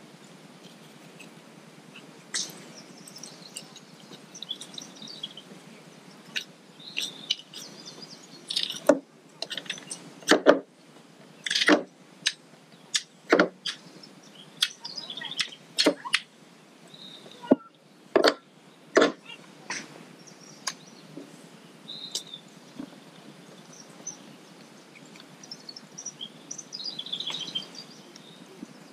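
A knife cutting and scraping paddlefish meat on a ridged plastic truck bed liner, with a run of sharp knocks and taps in the middle as the knife and meat strike the liner. Birds chirp faintly in the background.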